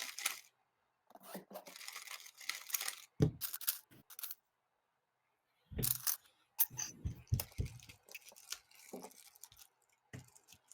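Scattered short clicks, taps and rustling, irregular and separated by brief silences, typical of handling noise.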